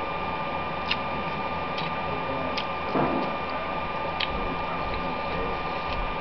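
A person eating potstickers fast by hand, with a brief mouth-and-chewing noise about three seconds in. Underneath is a steady hiss with a thin steady whine and light sharp ticks about once a second.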